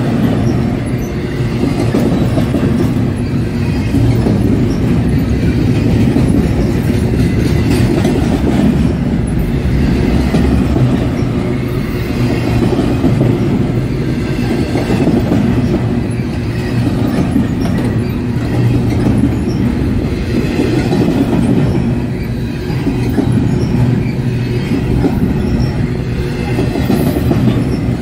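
Double-stack intermodal container train rolling past: a steady loud rumble and clatter of the well cars' wheels over the rails, with a faint high wheel squeal.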